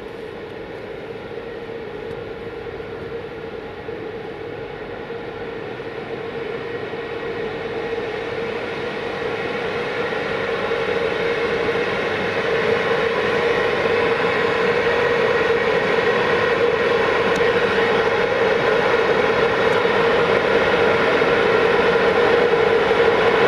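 Two coupled 060-EA (LE 5100 kW) electric freight locomotives moving slowly past, giving a steady electric whine that grows gradually louder as they come closer.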